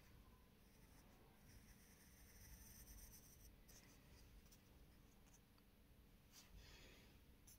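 Faint scratching of a pencil shading on paper, in short strokes that come and go.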